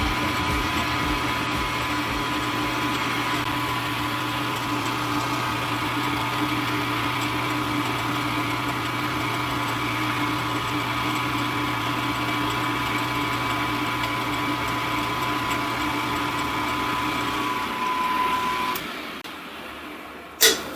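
Milling machine spindle running steadily, a constant motor hum and whine. It is switched off about 18 seconds in and winds down, followed by a single sharp click.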